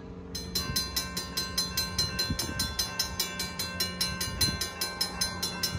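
Safetran mechanical crossing bell starts up about a third of a second in and rings steadily at about five strikes a second, as the grade crossing activates for an approaching train.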